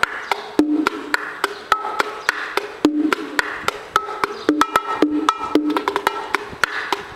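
Pair of bongos played with bare hands in a steady, repeating Cuban rhythm: quick sharp slaps and taps mixed with ringing open tones, one low and one higher, the pattern coming round about once a second.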